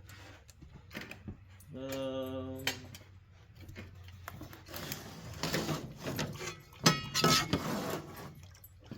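Handling noises from the teardown of an electronics unit: scattered clicks, knocks and rattles of metal parts and screws, busiest in the second half, with a short steady tone about two seconds in.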